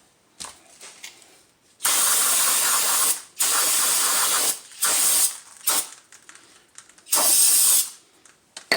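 Aerosol brake cleaner sprayed from a can in five hissing bursts, the first two each over a second long and the rest shorter.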